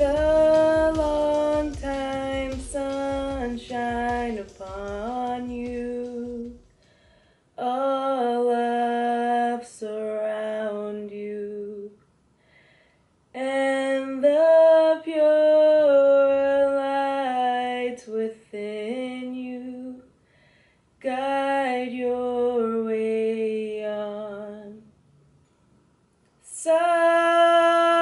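A woman singing a Kundalini yoga mantra in several melodic phrases with short pauses between them, ending on a long held note near the end. A low beat sits under the first few seconds.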